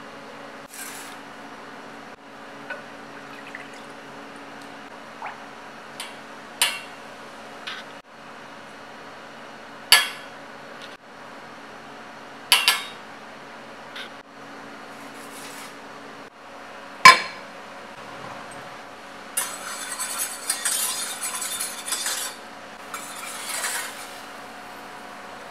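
Small dishes and utensils clinking against a metal saucepan as the tare ingredients are tipped in: about half a dozen sharp clinks, the loudest about 17 seconds in. Near the end a wire whisk scrapes and stirs in the pan for several seconds. A steady low hum runs under it all.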